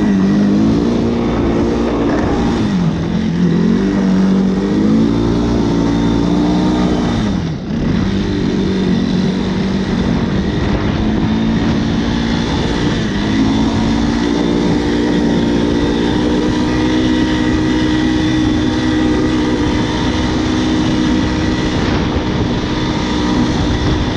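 Engine of a Yamaha YTM225 three-wheeler, an air-cooled four-stroke single, being ridden. It revs up and down several times, drops off sharply about seven seconds in, then runs steadier through the second half. The engine has a tick, which Marvel Mystery Oil in the crankcase and fuel is meant to quiet.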